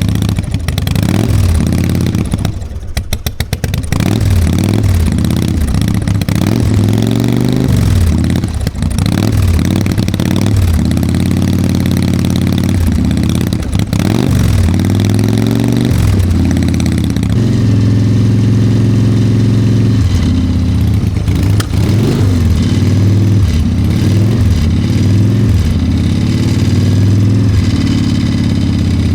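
Harley-Davidson Evo 1340 V-twin running just after a hard start following winter storage, revved up and down over and over with the throttle. The revs drop low and choppy briefly about three seconds in, and the engine settles to a steadier run for the last ten seconds or so.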